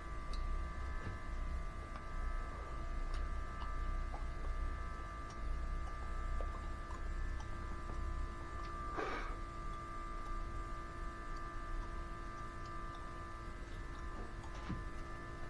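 Steady electric hum of an automotive smoke machine's air pump running while it pushes smoke into the Jeep's vacuum system, with one brief squeak about nine seconds in.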